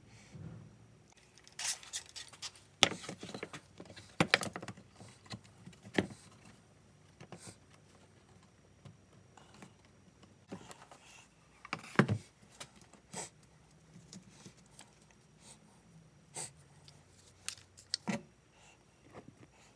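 Wooden boards being handled and set down on a workbench: scattered knocks and clatters, a few louder than the rest, the loudest about twelve seconds in.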